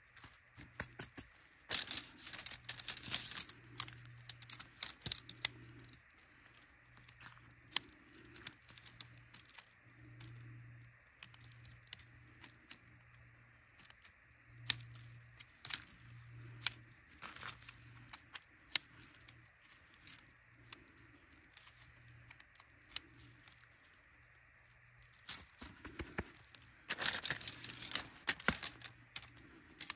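Metal shock-corded tent pole sections clicking and clinking together as they are unfolded and joined, with louder rattling about two seconds in and again near the end.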